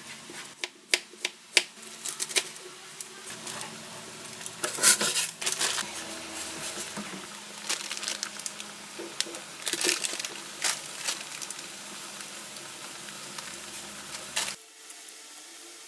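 Handling noise: irregular crinkling and sharp clicks, like plastic or packaging being handled, with a faint hum underneath that stops suddenly near the end.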